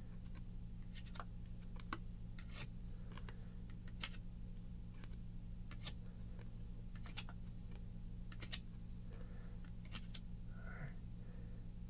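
Trading cards being flipped through by hand: scattered sharp clicks and snaps at irregular intervals, about one to two a second, over a steady low electrical hum.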